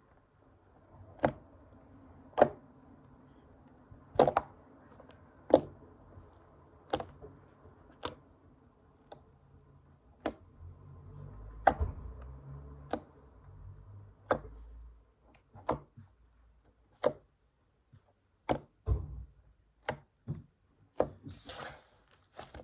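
Homemade slime handled close to the microphone for ASMR, giving a sharp click or snap about every second and a bit, with a low rumble in the middle stretch.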